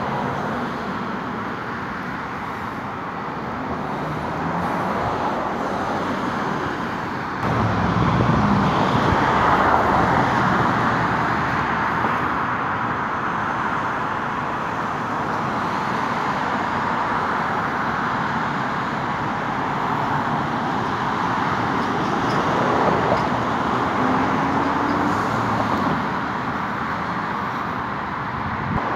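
Street traffic noise, a steady hum of passing cars, which grows louder about seven seconds in.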